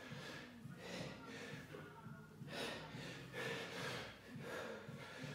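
Heavy, forceful breathing from a man doing kettlebell swings, with a sharp breath about once a second in time with the swings.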